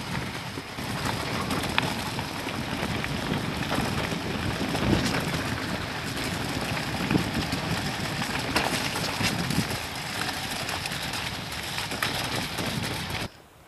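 Mountain bike running fast downhill over a wet, rough grass and mud track: wind buffeting the microphone over tyre rumble, with frequent knocks and rattles from the bike over bumps. It cuts off suddenly near the end.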